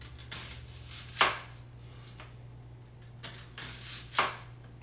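Kitchen knife slicing thin rounds from a peeled onion and knocking down onto a plastic cutting board: about six separate cuts, the sharpest about a second in and another about four seconds in.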